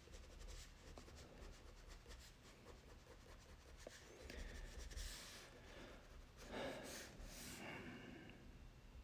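Faint scratching of a black Crayola crayon stroked across drawing paper, with a few louder strokes past the middle.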